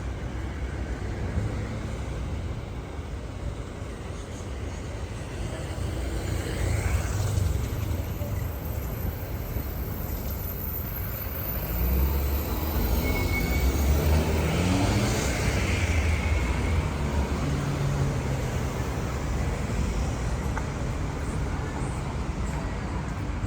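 Street traffic: a steady wash of passing cars and tyre noise, with a motor vehicle's engine rising in pitch as it pulls past about halfway through, when the rumble is loudest.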